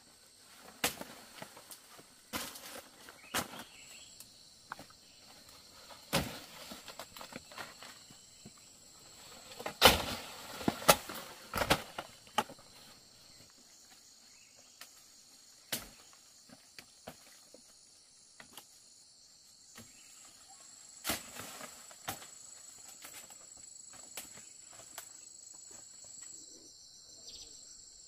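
Insects chirring with a steady high-pitched tone, overlaid by scattered sharp clicks and knocks, loudest in a cluster about ten to twelve seconds in.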